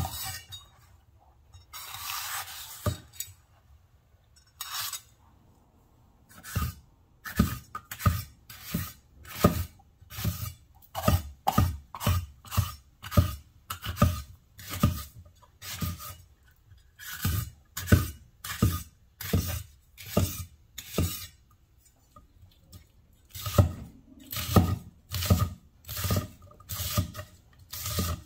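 Kitchen knife cutting a red bell pepper on a wooden cutting board: a few slow cuts, then steady chopping, nearly two strokes a second, each stroke crunching through the pepper and knocking the board. The chopping stops briefly about three-quarters through.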